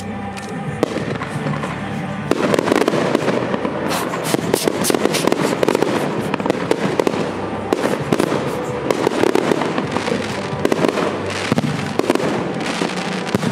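Aerial fireworks show: shells bursting in a dense barrage of sharp bangs and crackling, which thickens about two seconds in. Music plays underneath.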